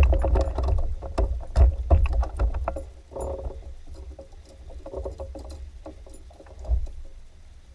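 Clicks and knocks of gear being handled on a fishing kayak over a low rumble, busy for the first three seconds, then sparser and quieter.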